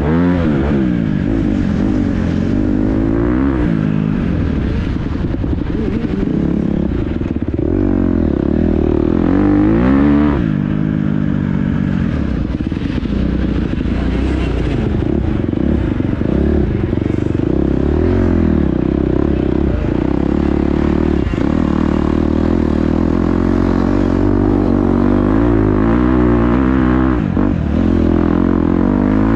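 Dirt bike engine running hard, its pitch rising and falling over and over as the throttle is opened and closed.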